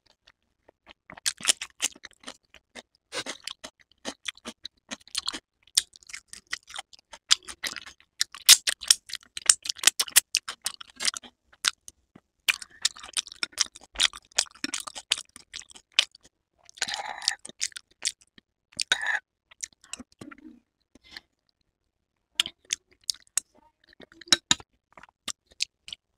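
Close-up chewing of crunchy food, beginning with a bite of raw cucumber: quick irregular crisp crunches and mouth clicks, dense through the first half, then sparser wet chewing sounds with short pauses.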